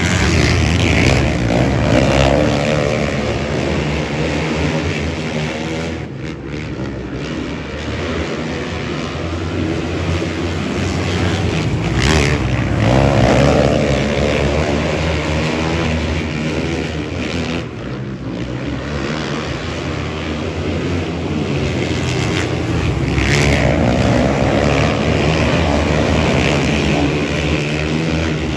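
Motor engines running continuously and revving up and down, with louder swells about every ten seconds.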